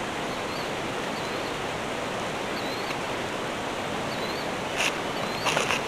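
Steady rush of a flowing stream, with a bird repeating a short high chirp over it about once a second. A few brief rustling clicks come near the end.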